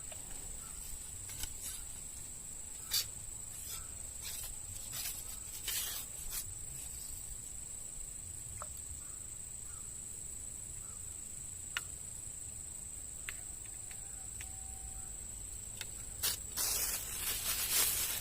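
A steady high-pitched insect drone, constant with no break, over outdoor background noise, with scattered small clicks and taps. Near the end comes louder rustling.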